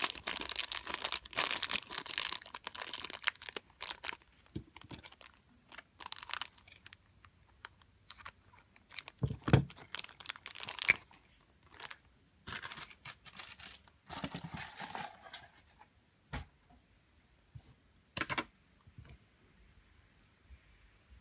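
Clear plastic bag crinkling and tearing as it is opened by hand: dense crackling for the first few seconds, then scattered crinkles and a few sharp clicks and knocks, one louder thud about nine seconds in, as the contents are worked out of the bag.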